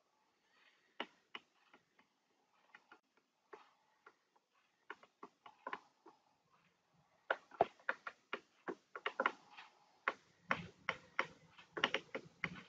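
Faint, irregular ticking of a computer mouse scroll wheel: scattered single clicks at first, then quicker runs of clicks from about seven seconds in.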